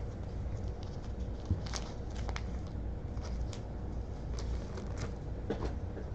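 Trading cards and foil packs being handled: scattered light clicks and rustles over a steady low hum.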